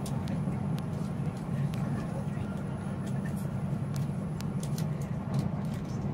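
Steady low running rumble of an E7 series Shinkansen train, heard from inside the passenger car, with a few faint ticks over it.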